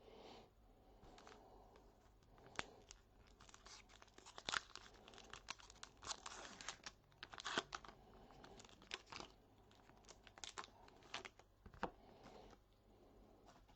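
A trading card pack's wrapper being torn open and crinkled, a faint run of crackles and short tearing rustles.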